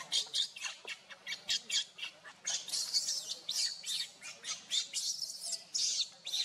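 Baby macaque squealing: a fast, unbroken run of short, high-pitched cries, several a second.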